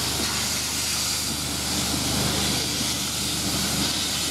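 Steam hissing steadily from around the coaches of a steam-hauled heritage train as it moves slowly past, over a low constant rumble.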